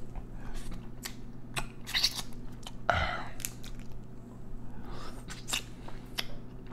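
Dungeness crab being cracked and picked apart by hand and eaten close to the microphone: a string of sharp shell clicks and cracks with wet chewing and sucking sounds.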